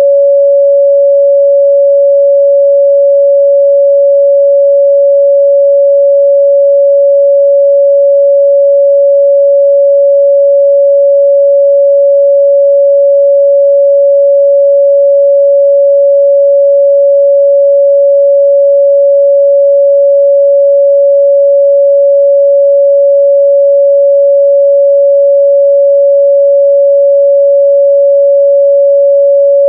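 Steady, loud 562 Hz sine-wave test tone, a single pure pitch held without change.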